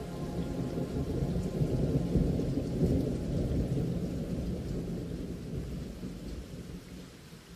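Rain with a long rolling rumble of thunder that swells about two seconds in and then slowly dies away.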